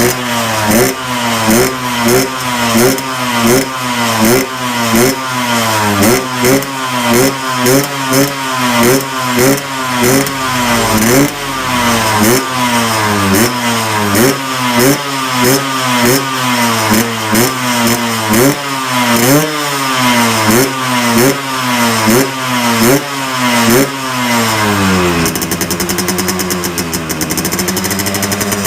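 Yamaha RX-King's two-stroke single-cylinder engine revved in quick, repeated throttle blips, about two a second, each rising sharply and falling back. It runs through a stock muffler hollowed out for a crisp, growling 'garing ngorok' note. Near the end it drops back to a steadier, lower-revving idle.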